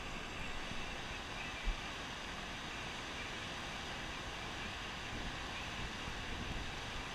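Fast tailwater rushing below a dam, a steady wash of churning water, with wind noise on the microphone and one short low bump about a second and a half in.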